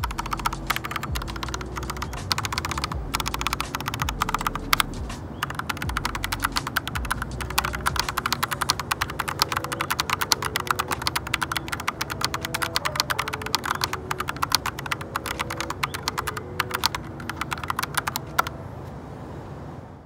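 Fast, continuous typing on a stock, unmodded FL Esports FL100 mechanical keyboard with Ice Pink linear switches and PBT Cherry-profile keycaps: a dense stream of key clacks, recorded through a phone's microphone. The typing stops shortly before the end.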